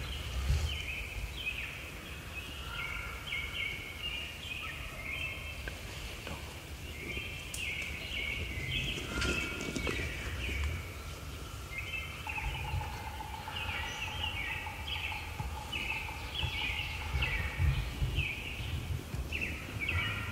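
Wild turkeys calling: a steady stream of short, repeated calls from the flock, with a tom gobbling among them.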